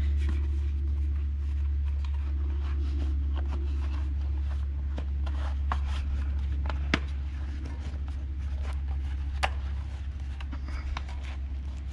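Mountain bike tire being handled and worked onto its rim by hand: light rubber scraping and scattered small clicks, with two sharper clicks in the second half, over a steady low rumble.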